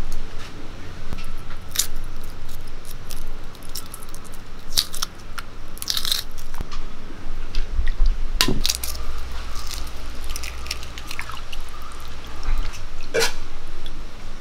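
Hard-boiled eggshells being cracked and peeled by hand: scattered sharp crackles and clicks, with a denser crackle about six seconds in, over a low steady rumble.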